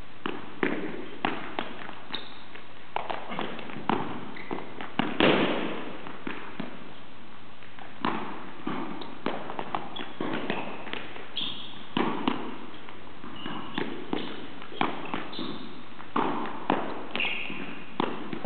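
Footbag rally: a footbag kicked back and forth and players' feet on an indoor court, heard as a string of irregular soft thuds and taps, the loudest a little over five seconds in, with a few short high squeaks of shoes on the court floor.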